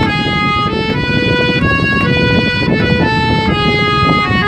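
Bengali Baul folk music: a harmonium plays a melody in flat, held notes that step from pitch to pitch every half second or so, over busy drum and percussion accompaniment.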